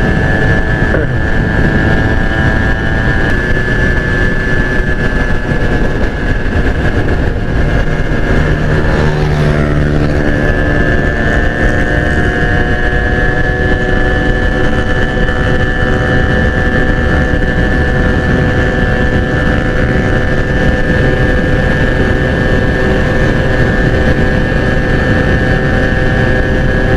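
Yamaha 110SS motorcycle engine running at a steady cruising speed, with heavy wind and road noise on the camera microphone.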